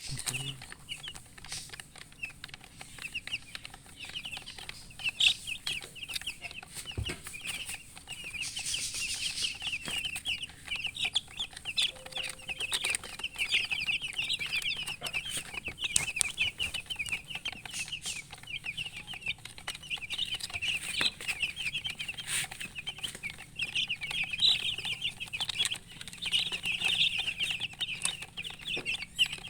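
Many chicks peeping non-stop in a dense chorus of short, high cheeps, with a few sharp knocks now and then.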